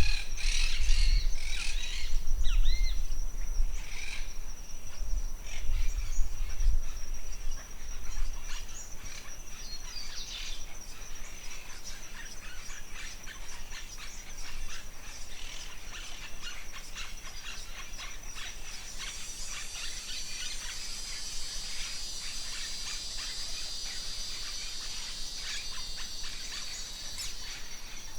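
Forest ambience: birds chirping and calling over a steady, high-pitched insect drone, with wind rumbling on the microphone for the first eight seconds or so. From about two-thirds of the way through, a louder hissing insect chorus joins in.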